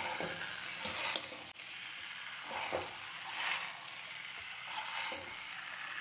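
Vegetable fried rice being stirred and tossed in a dark metal kadai with two metal slotted spatulas: a few irregular soft scrapes of metal on the pan over a light steady sizzle.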